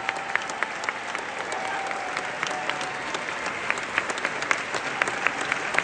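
Opera house audience applauding a bow at the curtain call: a dense, steady patter of clapping with sharper individual claps from nearby hands standing out. Faint held calls rise from the crowd in the first half.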